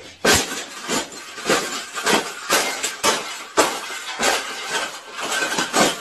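A wire birdcage being crushed flat under repeated jumps and stomps: about ten crunching, clanking hits of bending metal wire, each followed by a brief rattle.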